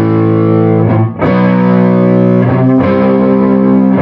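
Epiphone Les Paul electric guitar on its neck pickup, playing sustained chords with an edge-of-breakup tone, just starting to overdrive. A new chord is struck about a second in and another near three seconds.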